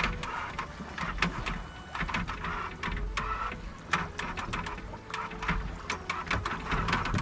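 Sailboat under sail: irregular sharp clicks and knocks from the boat's gear, a few a second, over a steady low wind rumble on the microphone.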